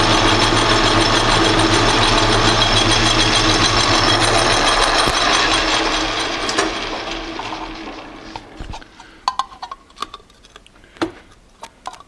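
Atlas metal lathe running with a steady whir, then switched off about six seconds in and winding down over the next two seconds. After it stops come a few light metallic clicks and clinks as parts are handled.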